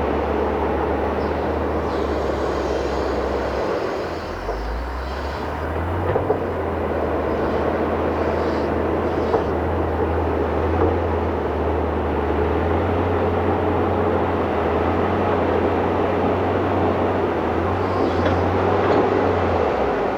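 Heavy diesel engine of a working machine running under load, with a steady low note. About four seconds in the engine note drops briefly, then climbs back and holds, with a few light knocks over the engine noise.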